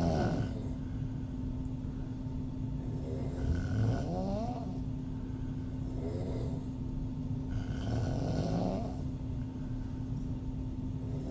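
A woman snoring with her mouth open, one loud snoring breath about every four seconds.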